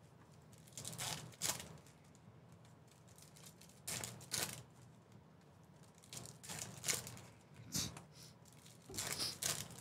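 Trading-card pack wrappers being torn open and crinkled in the hands: short crackly tearing and crinkling sounds that come in clusters a second or two apart.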